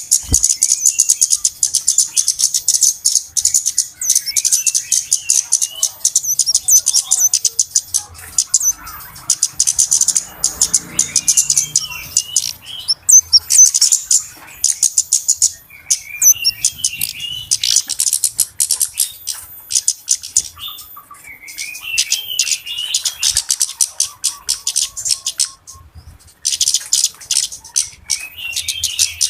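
Flowerpeckers (cabe-cabean) calling in a noisy flurry. Runs of very rapid, sharp, high-pitched ticking calls last a few seconds each, with short wavering twitters mixed in and brief pauses between runs.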